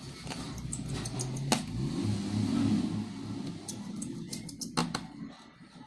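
Clicks of a smartphone's housing and parts being handled, two of them sharp, about one and a half seconds in and near the end, over a low engine-like rumble of a vehicle running in the background that is loudest around the middle.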